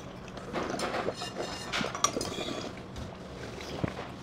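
Cold naengmyeon broth sipped from stainless steel bowls, with a couple of light clinks of metal tableware.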